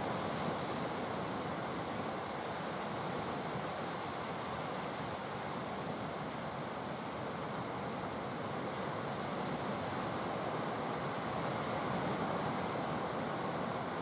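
Small sea waves breaking and washing in over low rocks and sand: a steady rushing surf that swells and eases gently.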